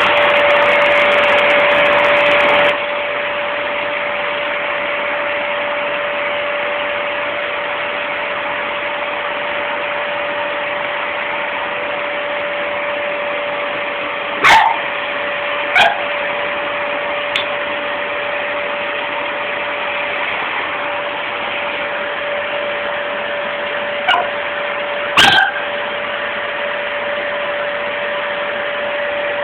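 Vacuum cleaner running steadily with a constant whine, a little louder for the first few seconds. An Akita gives about five short barks in the second half, in two clusters.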